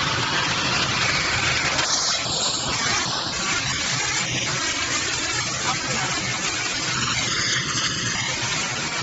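CNC plasma torch cutting sheet metal: a steady, loud hiss of the plasma arc and its cutting air.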